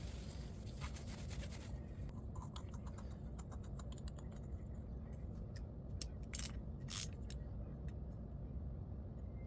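Faint scraping and a few light clicks as small carburetor parts are cleaned and handled by hand, over a steady low hum.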